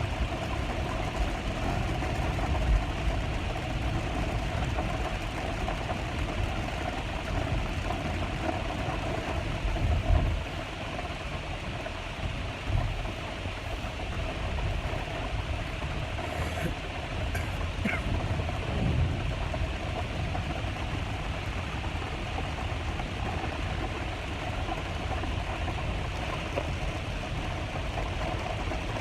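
Steady rain falling, over a continuous low rumble, with a few dull thumps.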